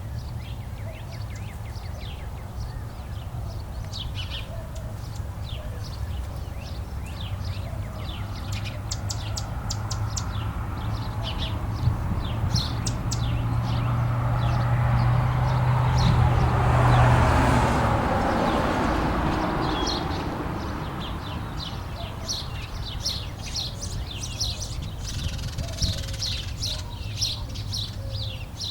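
Small birds chirping and twittering throughout in quick, high notes. Partway through, a passing vehicle's rumble with a low hum swells, peaks, and fades away.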